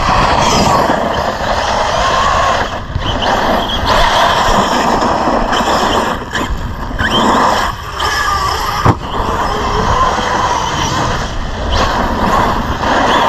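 Arrma Big Rock 6S brushless RC monster truck running at full throttle across dirt: its motor and tyres make a dense, loud noise that drops briefly a few times as the throttle is let off. There is one sharp knock about nine seconds in.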